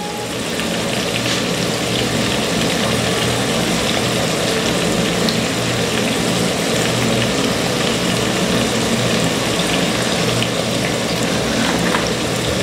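Diced carrots and sweet peppers frying in oil in a pot, a steady sizzle.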